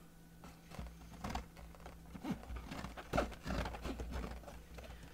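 Packaging being handled and opened: irregular crinkling, rustling and small clicks.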